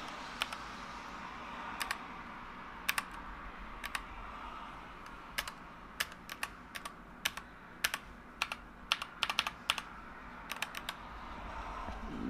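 Keys of a Keychron K8 mechanical keyboard being pressed: irregular single clicks at first, then quicker runs of keystrokes in the middle.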